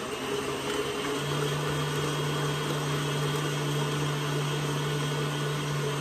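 Electric mixer running steadily, beating eggs into creamed butter and sugar; its hum steps up in pitch about a second in as the speed is raised.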